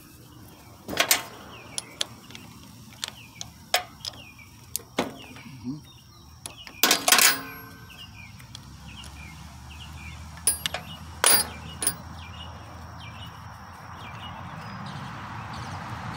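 Sharp metallic clicks and clinks from a wrench working the bolt of a riding mower's corroded battery terminal and the cable clamp being worked off the post. There are about nine of them, scattered, and the loudest clank, with a short ring, comes about seven seconds in.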